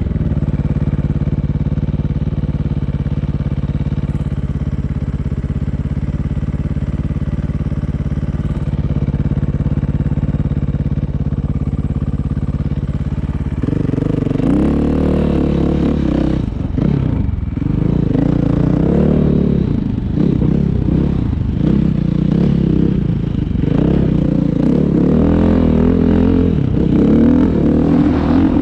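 A motorcycle-like engine running at a steady speed, then, about halfway through, revving up and down over and over, its pitch rising and falling with the changing throttle.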